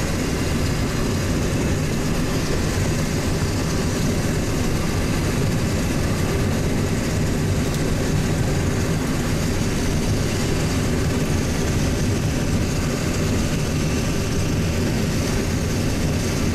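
Steady road and engine noise heard from inside a moving vehicle.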